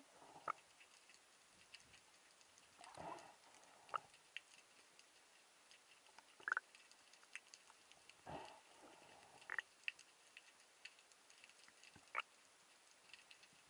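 Near-silent underwater ambience: faint, irregular sharp clicks and ticks, with two soft brief whooshes about three and eight seconds in.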